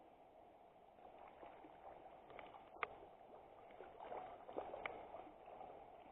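Faint, steady rush and gurgle of flowing river water, with a few small sharp clicks: one about three seconds in and another near the five-second mark.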